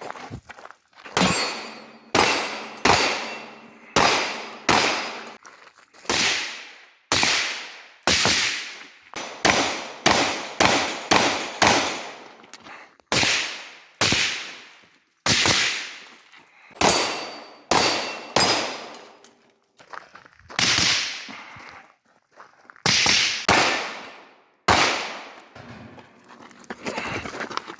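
Gunshots at a shooting range: about two dozen single shots fired at a steady pace of roughly one a second, with a few short pauses, each shot trailing off in a long echo.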